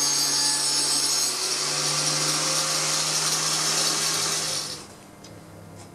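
A high-speed motor with a toothed cutting disc, mounted on a homemade copying attachment, runs with a steady whine while it cuts a spiral flute into a wooden blank turning on a small wood lathe. Near the end it switches off and the sound falls away, the pass along one turn of the spiral finished.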